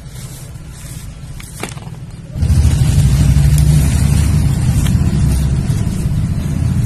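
Lumps of dry dirt crushed and crumbled by hand, giving faint scattered crunches. About two and a half seconds in, a loud, steady low rumble starts and stays the loudest sound to the end.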